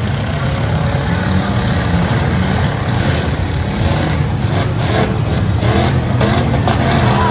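V8 stock derby cars' engines running loud, with a few sharp knocks in the second half.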